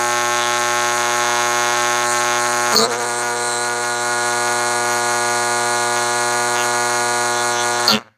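A fan running loudly with a steady, many-toned motor hum and hiss, with a brief bump about three seconds in; it cuts off abruptly near the end.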